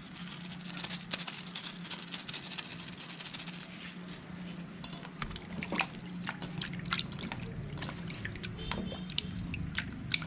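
Food cooking in a pan: a steady crackling sizzle with liquid bubbling and popping. The pops grow sharper and more frequent about halfway through, over a steady low hum.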